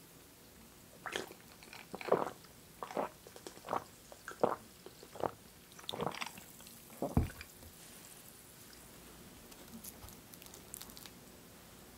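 A person gulping iced cola, about eight swallows a little under a second apart, with a few faint light clicks near the end.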